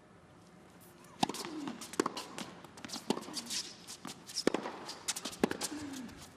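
Tennis rally: sharp racket-on-ball strikes starting about a second in and coming back and forth roughly once a second, with tennis shoes squeaking and scuffing on the court between the shots.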